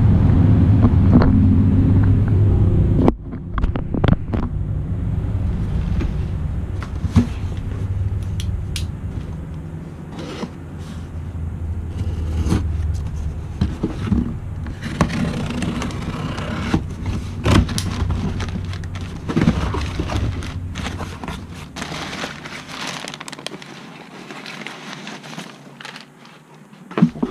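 Wind rumbling on the microphone for about the first three seconds. It cuts off suddenly, and scattered scrapes, clicks and crackling follow as a cardboard box is slit open with a knife and its packing peanuts are rustled. Near the end a steel go-kart A-arm is pulled out of the peanuts.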